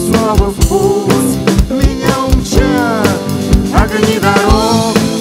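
Live band playing an instrumental passage of a rock-style chanson song: a drum kit keeps a steady beat under electric guitar lines and keyboard.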